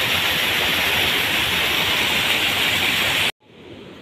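A loud, steady rushing hiss that cuts off abruptly near the end, leaving a much quieter outdoor background.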